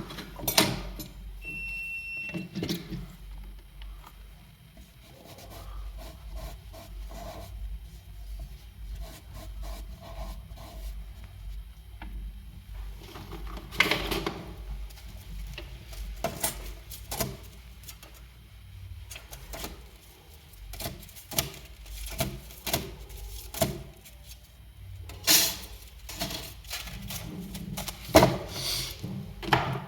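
Irregular clicks, taps and light knocks of small metal tools and parts being handled on a phone-repair bench, with a short beep about two seconds in and a steady low hum underneath.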